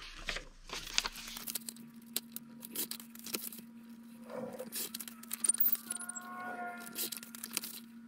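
Paper bags being handled and cut on a paper trimmer: scattered light clicks, taps and paper rustles, over a faint steady low hum. A brief pitched sound comes about six seconds in.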